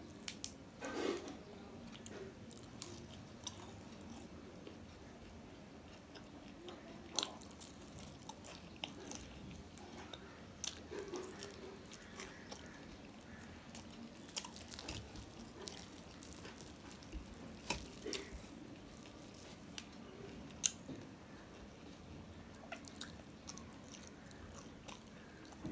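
A person chewing and biting flaky fried paratha close to the microphone, with scattered short mouth clicks and smacks. Now and then the paratha is torn by hand.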